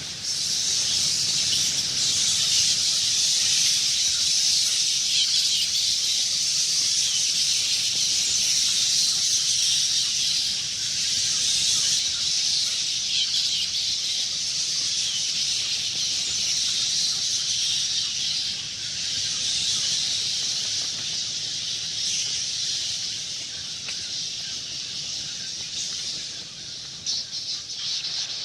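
A swarm of bats squeaking and chittering, many high-pitched calls overlapping into a continuous chatter that eases slightly near the end.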